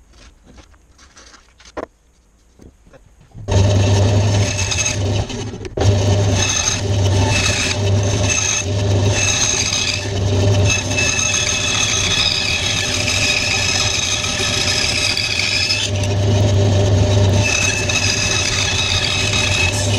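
Faint paper handling and small clicks, then suddenly, a few seconds in, a small benchtop bandsaw running loud, its motor humming low while the blade cuts through a thick pine block with a steady rasp.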